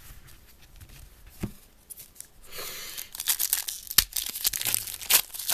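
A foil trading-card pack wrapper being torn open and crinkled, starting about halfway through as dense crackling with sharp clicks.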